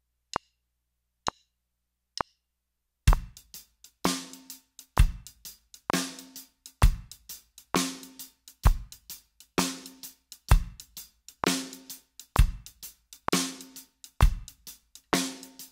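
Four clicks counting in, then a DW Performer drum kit playing a slow shuffle practice groove at about one beat a second. The right hand plays a shuffle with the second note of each pair accented, the snare lands on beats two and four, and the bass drum on one and three.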